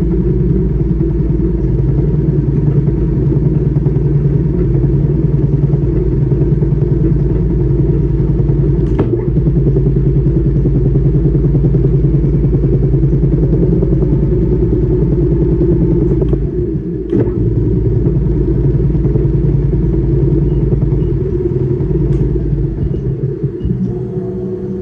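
Machine tool running steadily while power-tapping 1/2-13 threaded holes in a cast wheel hub, with a steady low hum and a couple of sharp clicks about 9 and 17 seconds in.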